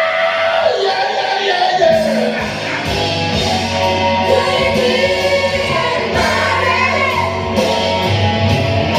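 A group of men singing karaoke together into one microphone over a loud backing track with bass and drums.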